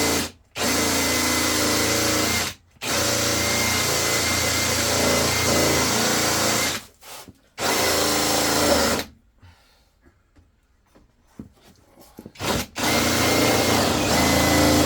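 Power drill cutting into a soil vent stack, running in several bursts with short gaps between them. There is a quieter stretch of a few seconds with small knocks in the middle, then one last burst near the end.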